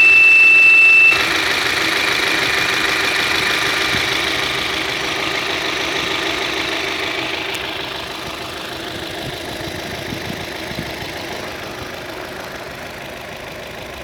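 Opel Astra H engine running with a loud, steady high-pitched whistle that cuts off abruptly about a second in. The engine keeps running after that, its sound slowly fading.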